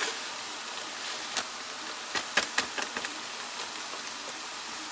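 Ground beef sizzling in a hot skillet: a steady frying hiss with a few sharp crackles, a cluster of them in the middle.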